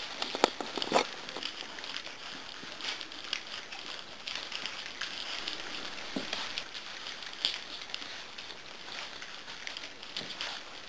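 A litter of puppies eating together from a metal feeding dish: a steady, irregular crackle of small clicking, smacking and chewing noises, with a few louder clicks about half a second and a second in.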